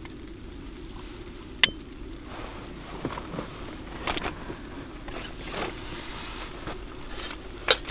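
Scattered handling sounds over a steady low hum: a sharp click about a second and a half in, several short scrapes and knocks, and two sharp clicks near the end.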